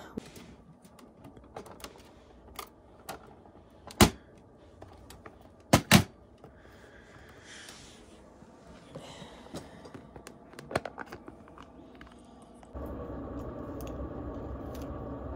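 Plastic lash-tray cases and storage bins being handled: scattered clicks and clacks, the loudest about four and six seconds in, with brief rustling between. Near the end a steady low room hum takes over.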